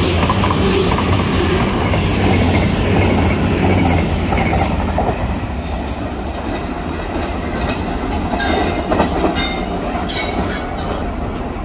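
Train running past on the rails: a steady heavy rumble, with a few sharp clicks in the second half.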